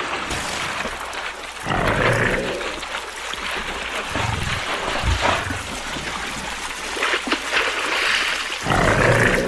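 A large animal calling: two loud, harsh calls, about two seconds in and near the end, over continuous background noise.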